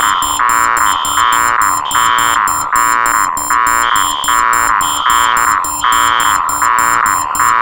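Four electronic alarms sounding together in a loud, relentless loop: a harsh buzzing tone pulsing about twice a second, a high beep about once a second, rapid shrill high-pitched beeping and a low pulsing tone, all overlapping.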